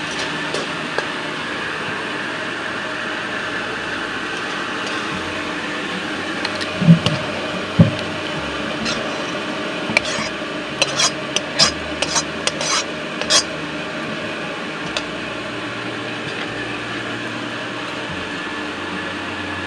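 A metal spatula stirring and scraping in a steel kadai of curry over a steady sizzling hiss. There are two loud knocks about seven and eight seconds in, then a quick run of sharp metal clinks a little later as the curry is scraped out of the kadai into a steel bowl.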